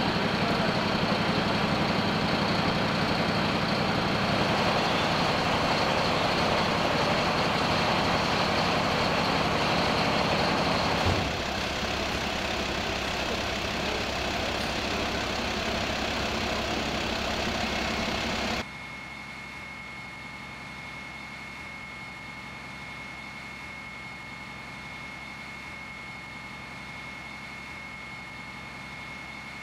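A vehicle engine idling steadily. The sound drops suddenly about eleven seconds in and again, more sharply, a little before twenty seconds, leaving a quieter steady hum with a faint high tone.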